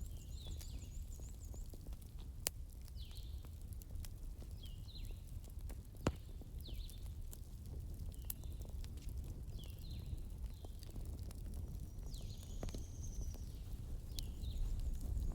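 Campfire burning with a low rumble and scattered crackles, two louder pops standing out. Over it, birds give short repeated chirps about every two seconds, with a higher trill near the start and a longer call near the end.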